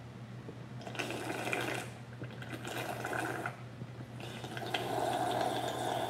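A person slurping watermelon juice straight from a hollowed-out watermelon half tipped up to the mouth, in three long draws, the last the longest.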